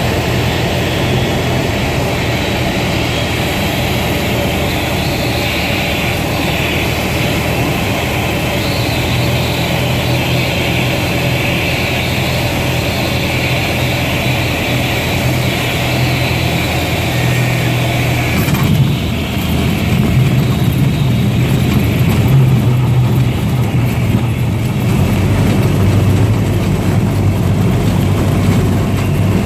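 Cessna 172's engine and propeller running steadily, heard inside the cabin through a landing. About two-thirds of the way through there is a brief bump as the wheels touch down, and a low rumble from rolling on the grass runway joins the engine.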